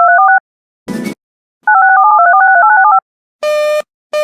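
Touch-tone (DTMF) dialing tones: a rapid run of paired beeps ends just after the start, a short burst of noise comes about a second in, and a second rapid run follows. Near the end a pulsed busy-signal beep starts, sounding twice.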